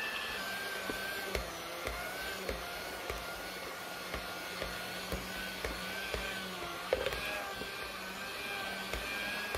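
Handheld electric mixer with dough hooks running steadily while kneading a ball of bread dough: a steady motor whine that wavers slightly in pitch with the load. Regular low thumps come about twice a second as the dough turns in the bowl.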